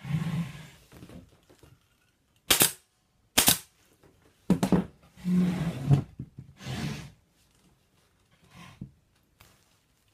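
Pneumatic upholstery staple gun firing, two sharp shots about a second apart and a third about a second later, fixing bonded polyester batting under the seat frame. In between comes the rustle of the batting being pulled and smoothed by hand.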